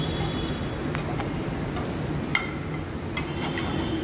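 Yellow pea tikkis sizzling in oil in a nonstick frying pan over a steady low hum, with a few sharp clicks of a metal slotted spatula against the pan, the loudest about two and a half seconds in.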